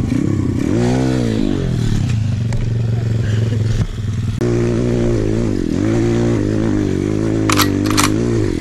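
Dirt bike engine revving up and back down about a second in, then running steadily. About four and a half seconds in, another dirt bike engine takes over, dipping and rising, with a few sharp clicks near the end.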